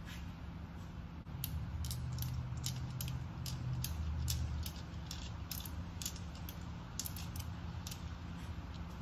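Light metal clicks and clinks, a few a second at irregular spacing, as valve lifters are pulled out of an LNF engine's cylinder head and handled, over a low steady hum.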